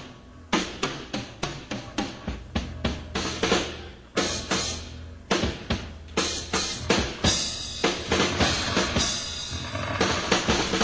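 Rock band playing live, with the drum kit to the fore: quick snare and bass-drum strikes over a steady low bass line. Cymbals wash in more strongly from about seven seconds in.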